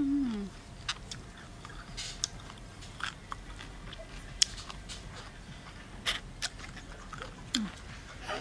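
A person chewing a crunchy shrimp and young tamarind salad in close-up, with scattered crunches and the clicks of a metal spoon scraping through the salad. A brief falling hum comes right at the start.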